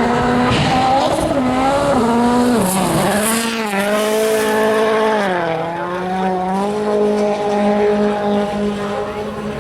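A World Rally Car's turbocharged 1.6-litre four-cylinder engine under hard acceleration. Its note drops at gear changes about three and five seconds in, then holds fairly steady.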